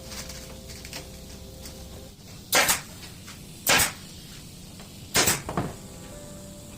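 Three loud, sharp clacks, about a second or so apart, the last with a quick smaller echo-like second hit, over a faint steady hum that stops about two seconds in.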